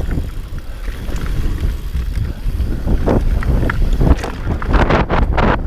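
Enduro motorcycle riding a dirt track: the engine running under heavy wind noise on the microphone, with a few sharp knocks in the second half.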